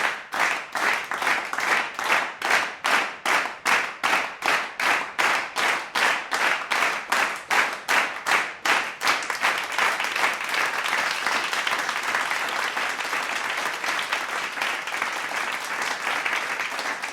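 A crowd clapping in unison, about three claps a second, then breaking into continuous applause that fades out near the end.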